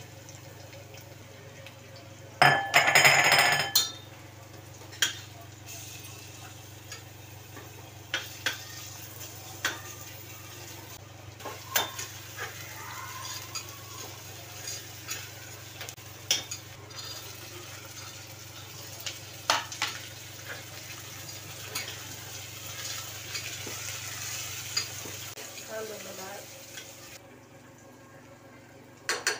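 A steel spatula stirring onion, curry leaves and peanuts frying in a stainless steel pressure cooker, with sharp clinks of metal on metal every second or so over a faint sizzle. About two and a half seconds in, a loud scraping clatter lasts about a second.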